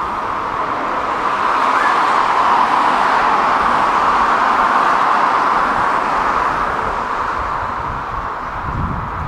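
Road traffic: a steady rush of tyre noise that swells over the first couple of seconds, holds, and eases off toward the end, with a low rumble near the end.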